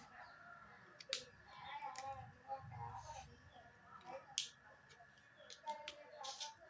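Faint scattered clicks and short rustles of highlighters and their packaging being handled.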